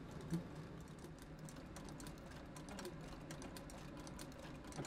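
Heavy-duty patcher sewing machine stitching an ice-hockey skate boot: a fast, irregular run of light mechanical clicks.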